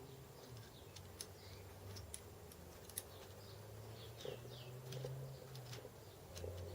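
Faint, scattered light clicks and taps of small metal parts being handled while bolts are fitted. Birds chirp a few short falling notes in the background over a low steady hum.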